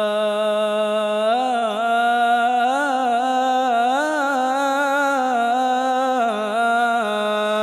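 A man chanting a suluk, unaccompanied Arabic devotional singing. He holds one long melismatic note without a break, its pitch wavering up and down in ornaments.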